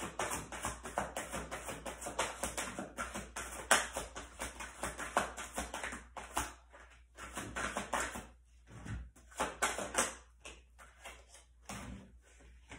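A tarot deck being shuffled by hand: a fast run of soft card slaps and flicks, thinning out after about six seconds into separate taps.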